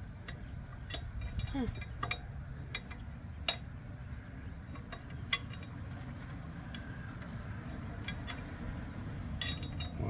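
Scattered light metallic clicks and clinks of hand tools and bolts against the steel crash bar hardware as it is fitted, over a low steady background rumble.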